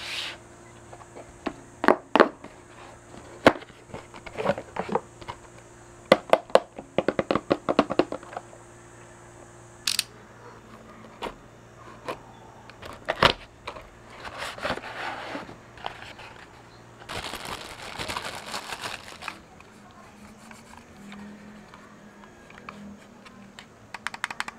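Unboxing handling sounds: a string of sharp taps and knocks of a cardboard box on a table, then a utility knife slitting the seal of the inner box with a scratchy scraping, and rustling of packaging as the mouse is taken out.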